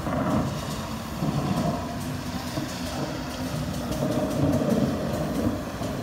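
Miniature ride-on railway train running along its track, a continuous low rumble with rapid wheel clatter.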